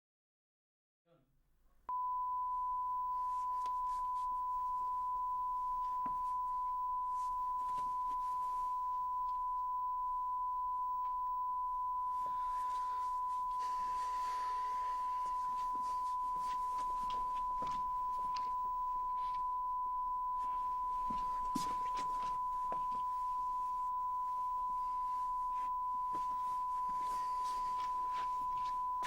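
Steady electronic test tone, one pure unchanging pitch, starting about two seconds in after a moment of silence. Faint clicks sound underneath it.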